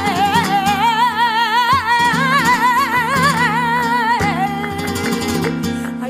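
Flamenco-style music: a high, sustained melody with wide vibrato over plucked guitar accompaniment.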